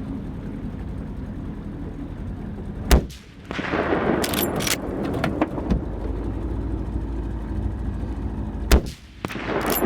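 Two rifle shots about six seconds apart, each a single sharp crack, over the steady low hum of a running engine.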